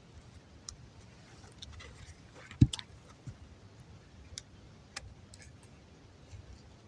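Campfire of damp firewood crackling, with sparse sharp pops scattered through, and one low thump about two and a half seconds in.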